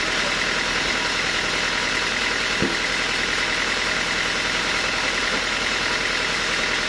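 Sawmill machinery running steadily, with one short knock about two and a half seconds in.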